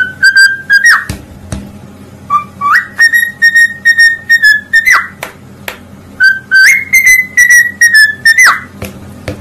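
Parrot whistling a tune in three phrases: held notes that end in quick swoops up and down.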